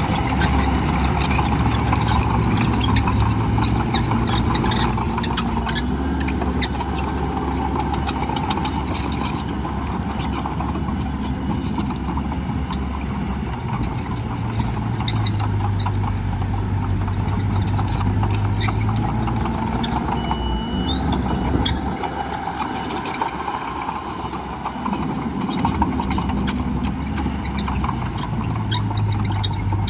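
Heavy diesel earthmoving machinery running at a dirt fill, the engine note rising and easing in stretches, with scattered clanks and rattles.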